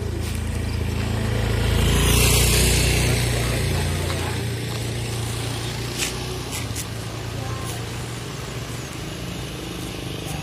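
A motor vehicle engine passing close by, growing louder to a peak about two seconds in and then fading, leaving a steady low engine hum.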